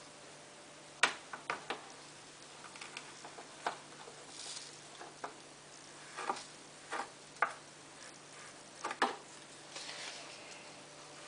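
Irregular light clicks and knocks of hands handling small plastic things, about a dozen spread unevenly, with a couple of brief soft hisses, over a faint steady hum.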